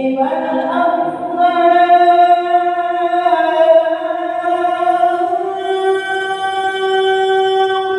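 A man chanting in Arabic in the drawn-out melodic style of mosque chanting, holding long notes that shift in pitch a few times, stepping higher in the second half.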